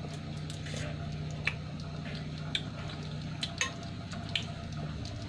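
Thick spaghetti sauce simmering in an aluminium pan, with a handful of sharp, irregular pops as bubbles burst at its surface, over a steady low hum.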